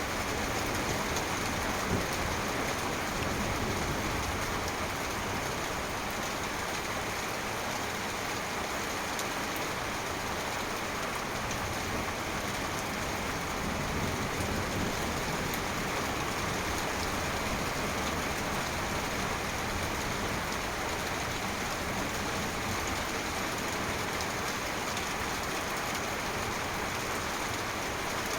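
Heavy downpour of rain, a steady hiss of rain falling on surfaces.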